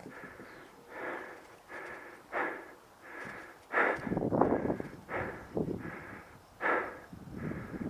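A player's footsteps and jostling gear in a steady walking rhythm, about one step every two-thirds of a second, briefly louder and busier about four seconds in.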